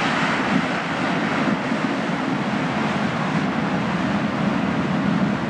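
Steady rushing noise of rough sea surf breaking onto a boulder beach.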